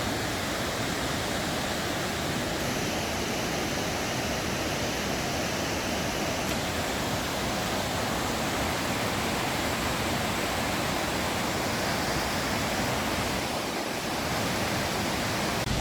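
Steady rush of the Roaring River's fast whitewater, a dense even hiss of water with no let-up.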